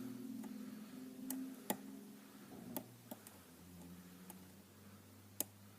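Lock pick and tension wrench working the pins of a Kwikset pin-tumbler lock: a handful of sharp, irregular clicks, the loudest about a second and a half in and again near the end. The lock is held in a false set, which the picker takes for a spool pin.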